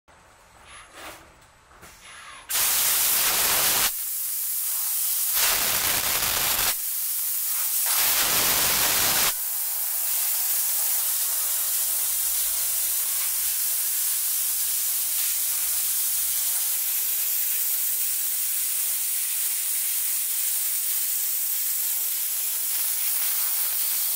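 Laser cutting head's assist gas jetting through the nozzle as it cuts sheet steel: a loud, steady hiss. After a couple of quieter seconds with faint clicks, the hiss cuts in, stops and restarts a few times, then runs on unbroken.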